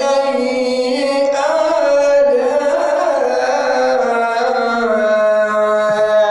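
A man reciting the Quran in the melodic tilawat style, one long unbroken phrase of drawn-out held notes with ornamented turns and slides of pitch.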